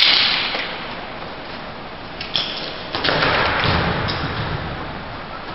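Two sharp knocks about half a second apart over a steady hiss, followed by a swell of noise.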